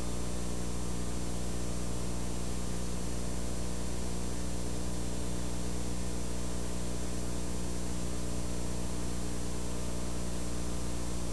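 Steady electrical hum with a layer of hiss, unchanging throughout.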